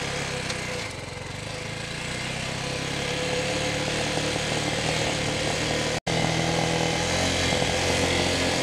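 TDR 300 dirt bike engine running steadily while riding. It grows a little louder after the first second, and the sound cuts out for an instant about six seconds in.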